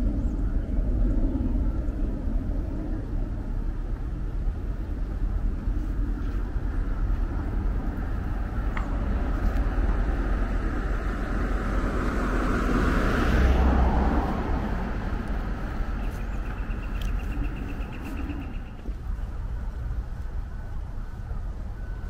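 Steady road traffic rumble, with one vehicle passing close by a little past halfway, its sound swelling and then fading.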